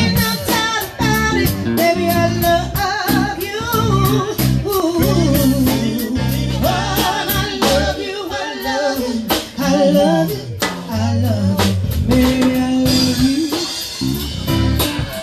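Live band performance: a woman singing lead into a microphone over electric bass and a drum kit.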